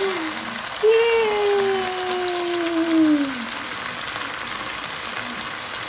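Meat and peppers sizzling in a wok, a steady hiss with many small pops. About a second in, a person's voice holds one long note that slowly falls, lasting about two and a half seconds.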